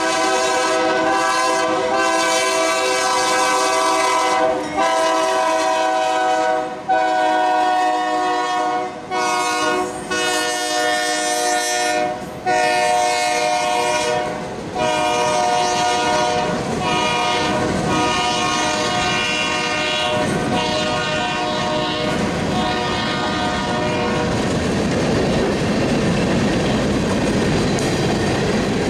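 Freight locomotive's air horn sounding a string of long blasts with short breaks as a coal train goes through a grade crossing. In the last few seconds the horn stops and the rumble and clatter of the coal hopper cars rolling past takes over.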